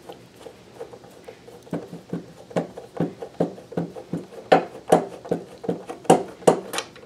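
Hand screwdriver turning a short screw in the metal base plate of a sewing machine, giving a steady run of sharp clicks about two or three a second. The clicks start about two seconds in and grow louder later on. The screw is too short and does not catch its thread.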